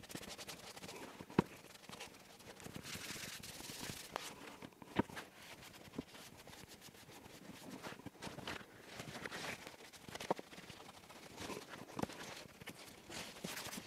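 Applicator rubbing and scratching varnish onto a wooden shelf unit, faint and uneven, with a few light knocks on the bench.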